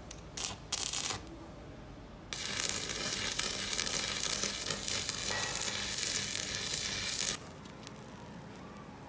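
Stick (arc) welding on a broken pinion gear: two brief crackles of the arc under a second in, then a steady sizzling arc for about five seconds that cuts off abruptly.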